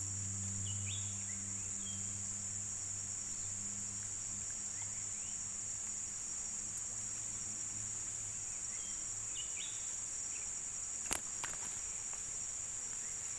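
Steady, high continuous chorus of insects. A low steady hum runs under it and fades out a little past halfway. A single sharp click comes about eleven seconds in.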